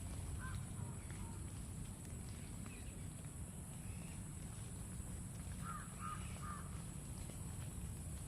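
Short animal calls: one about half a second in, then three in quick succession around six seconds in, over a steady low rumble.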